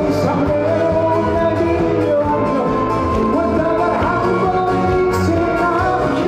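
Trot song sung live by a male singer over a backing track with a steady beat.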